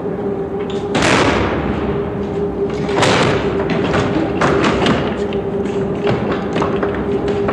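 Heavy thuds and knocks of an underground mail train being unloaded in a mail sorting office, with two loud impacts followed by a quick run of lighter knocks, over a steady machinery hum.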